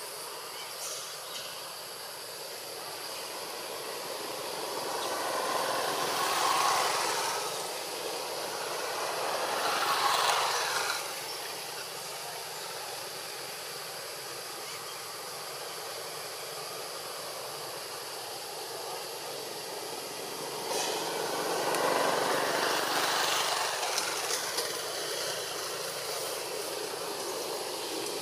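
Outdoor background hiss with a faint steady high whine, as vehicles pass by: three rushes of road noise that each swell and fade over a few seconds, two in quick succession in the first half and a third later on.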